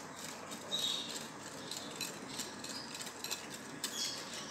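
Wire whisk clicking and scraping against a glass bowl while stirring cocoa powder into water: an uneven run of small ticks with a few brief squeaks.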